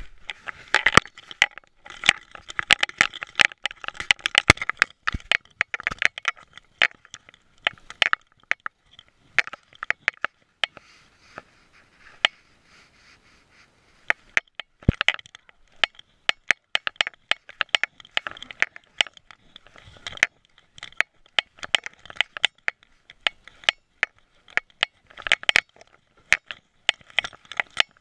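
Irregular crackling, scraping and sharp clicks of a GoPro strapped to a dog's neck, knocking and rubbing against the collar and fur as the dog moves around.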